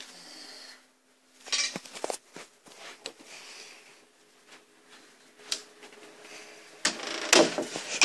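Bedroom door handled: a doorknob is turned with a few clicks and knocks. Near the end comes a louder stretch of rattling and rubbing against the door.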